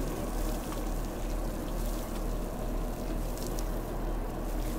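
Water being poured from a container onto the soil at the base of a newly planted tree, a steady splashing trickle over a constant low hum.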